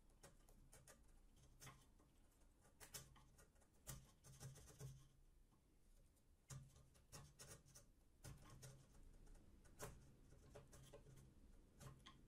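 Faint scratching strokes and light taps of a pencil marking lines on a small wooden block, repeated many times with short pauses.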